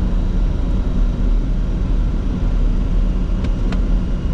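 Steady flight-deck noise of a Bombardier Challenger 604 on final approach with flaps and gear down: a constant low rumble of airflow and engine hum, with two faint short ticks near the end.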